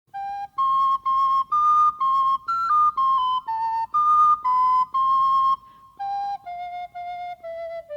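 Flute playing a melody of short separate notes; the notes become softer and lower from about six seconds in.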